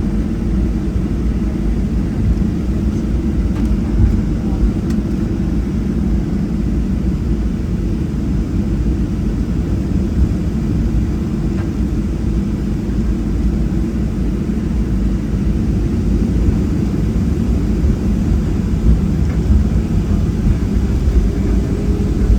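Steady low rumble of a Boeing 737-700's cabin while the airliner taxis, its CFM56-7B engines running at low taxi power, with a few steady hum tones in the drone.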